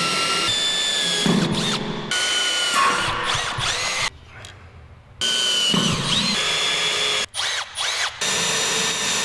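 Milwaukee Fuel cordless drill boring into the steel plate of a wall beam. The motor whines in long runs with shifting pitch, stops for about a second midway and briefly again near the end. The bit is making little headway in the steel.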